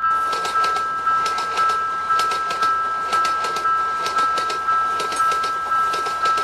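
Japanese level-crossing alarm ringing its 'kan kan' bell tone about twice a second, with the clattering rush of a passing train over it.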